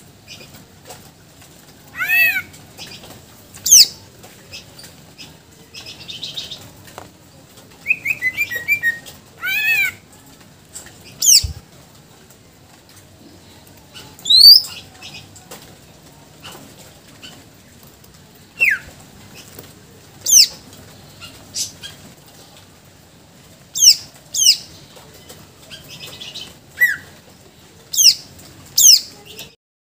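Caged greater green leafbird (cucak ijo) singing its varied, mimicry-filled song in a dozen or more loud, sharp phrases separated by short pauses: mostly quick whistles sliding down from high pitch, with a couple of buzzy chattering runs. A single thump about eleven seconds in.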